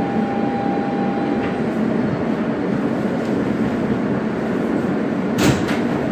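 Interior running noise of a Siemens R160B New York subway car in a tunnel: a steady rumble of wheels and car body, with a thin steady whine that stops about one and a half seconds in as the train slows. A sharp clank sounds near the end.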